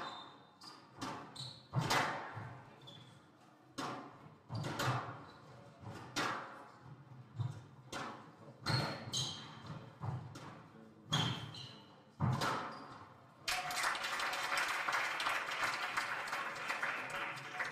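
Squash rally: the ball cracks off rackets and the court walls about once a second, echoing in the hall, with short shoe squeaks on the wooden court floor. About thirteen seconds in the rally ends and the crowd applauds.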